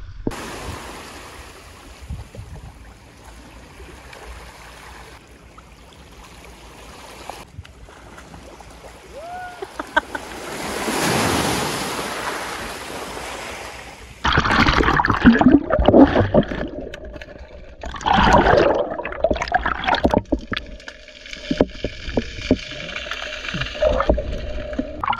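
Shallow seawater washing over a stony beach, a steady hiss that swells once about ten seconds in. From about halfway, loud irregular splashing and gurgling as the camera is dunked in and out of the water.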